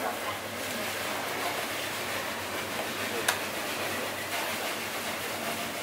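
Butcher's knife slicing meat on a wooden chopping block over a steady background hiss, with one sharp knock of the blade on the wood about three seconds in.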